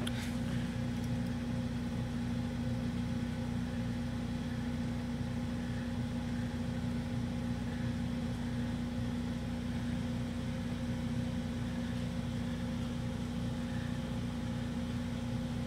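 Black kitten purring steadily while being stroked, close to the microphone, over a constant low hum.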